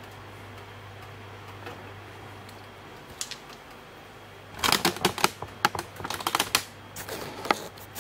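Low steady hum, then about four and a half seconds in a quick, irregular run of clicks and knocks, like a camera being handled and repositioned at close range.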